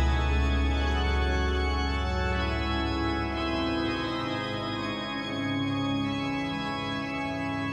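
Organ music playing sustained chords over a deep bass note; the bass drops away about four seconds in while the upper chords hold.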